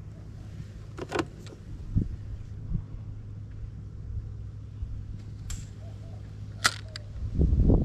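Steady low hum of the boat's motor, with a few sharp clicks and knocks from handling the rod and gear, and a louder low rumble near the end.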